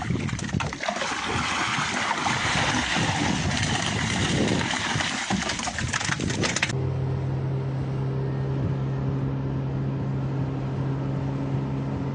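Loud rushing noise that cuts off abruptly about seven seconds in. After it, a boat's engine runs with a steady low drone as the boat struggles and fails to get up on plane.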